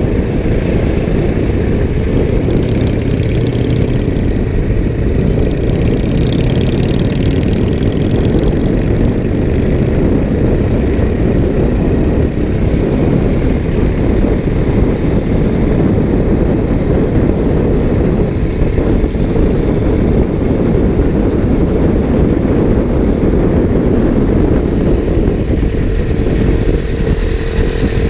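Motorcycle riding along at speed: a steady, loud, low rumble of engine and wind on a GoPro action camera's microphone.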